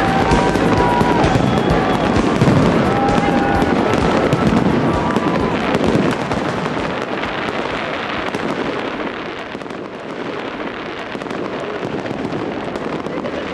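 Dense crackling of fireworks, a thick stream of small pops, growing quieter after about six seconds. Music with a few held notes fades out under it in the first half.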